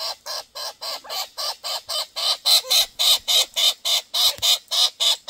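Young Australian king parrot begging for food: a rapid, unbroken run of short calls, about six a second, getting louder about two seconds in.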